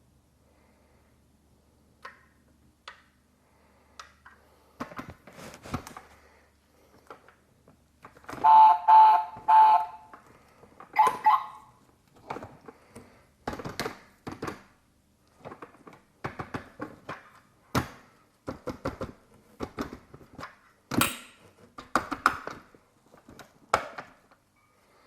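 Small clicks and taps from handling a 1:24 diecast model car, its doors and plastic parts snapping and knocking. About nine seconds in there is a short pulsing beep-like tone, then another brief tonal chirp just after.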